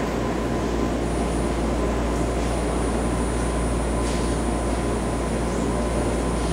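Steady hum and rushing noise of a 10-car BART train standing at the station platform with its doors open.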